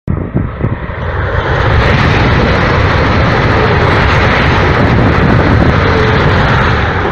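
Renfe AVE Talgo 350 high-speed electric train passing close at speed: a loud rushing roar that starts abruptly, swells over the first two seconds, holds steady, and begins to fade near the end.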